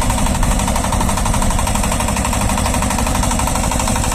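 Shifeng SF-240 minitractor's diesel engine running steadily under load, driving a rotary tiller through garden soil, with a fast, even knocking rattle.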